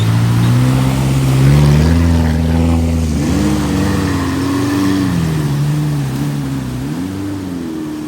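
Motor vehicle engine pulling away and accelerating through the gears, its pitch climbing and dropping sharply at gear changes about three and seven seconds in. It grows quieter toward the end.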